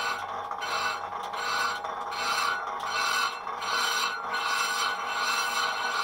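A carbide-tipped lathe tool skimming the face of a cast-iron Jeep Cherokee XJ front brake disc spinning on an old South Bend lathe. The cut swells and fades in a regular rhythm, about one and a half times a second, over the lathe's steady running.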